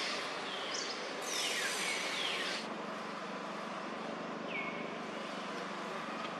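Outdoor forest ambience: a steady hiss with a few short, high-pitched calls that fall in pitch, three or four in all, the middle ones with a burst of hiss.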